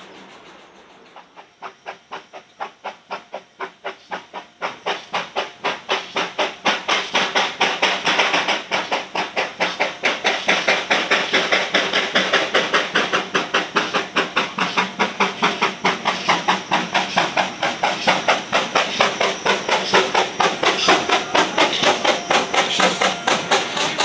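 Narrow-gauge steam locomotive working a train, its rhythmic exhaust beats and steam hiss starting faint and growing louder over the first several seconds, then staying loud and even at about four beats a second.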